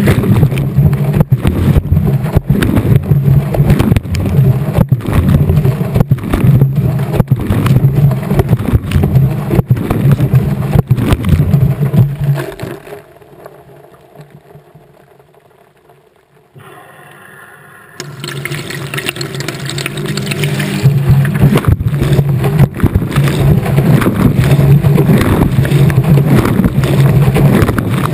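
Washing machine drum turning a wet load, heard from inside the drum: water sloshing and frequent knocks over a low motor hum. About halfway through the drum stops for a few seconds, then starts turning again.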